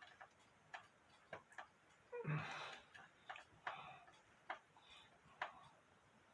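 Faint light clicks, roughly one a second, with a short rustle a little over two seconds in.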